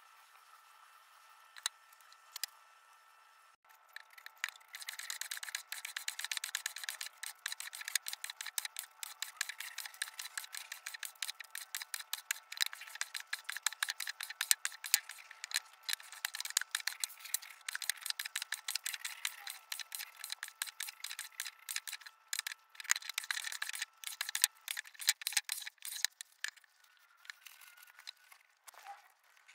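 Small wooden Japanese hand plane (kanna) cutting along the edge of a board in quick, repeated short strokes, a crisp scraping and rasping. It starts about four seconds in and stops shortly before the end.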